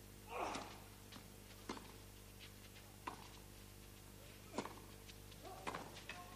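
Tennis rally on a clay court: a serve struck about half a second in, then racket hits on the ball roughly every second and a half. A faint steady hum runs underneath.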